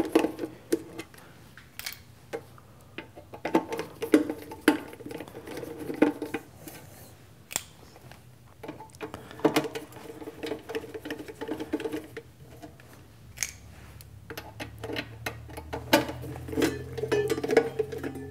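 Screwdriver backing out the screws of a sheet-metal electrical box cover: scattered small clicks, scrapes and taps of the screwdriver tip in the screw heads and the cover being handled.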